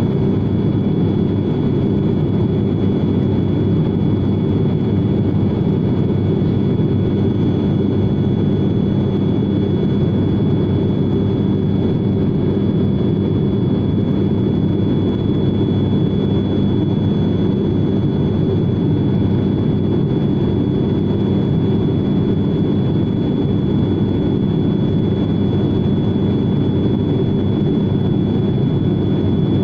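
Turboprop airliner's engines and propellers heard inside the cabin in flight: a loud, steady drone with a thin, steady high whine above it.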